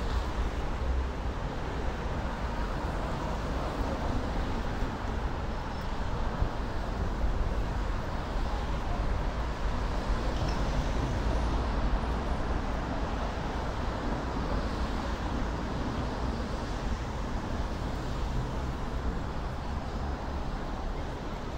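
Steady road traffic: cars passing on a busy city boulevard, a continuous even rumble and hiss with no single vehicle standing out.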